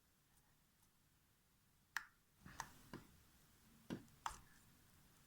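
Fluffy homemade shaving-foam slime being squeezed and poked with fingers: a few faint, short sticky pops and clicks in the second half.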